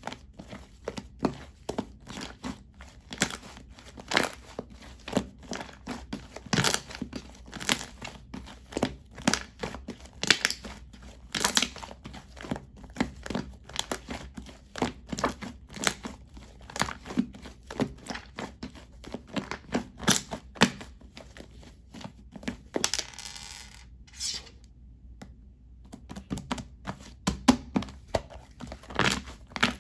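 Shaving foam being handled and squished, giving dense, irregular crackling and crinkling snaps. About three-quarters of the way through there is a steady hiss lasting about a second.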